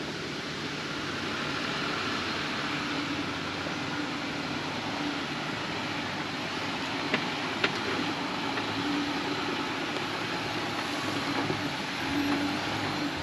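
Off-road truck's engine running at low speed while it crawls along a rough trail under a spotter's direction, a steady drone with two short clicks about halfway through.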